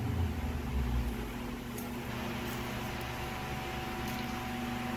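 Steady low hum with a faint even hiss, and a few light clicks from a digital caliper being handled.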